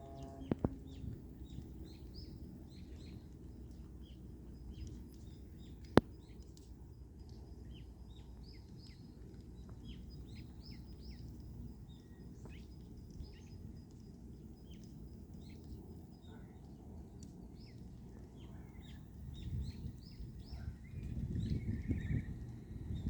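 Small birds chirping, many short high calls, over a steady low rumble. There is a single sharp click about six seconds in, and the low rumble swells near the end.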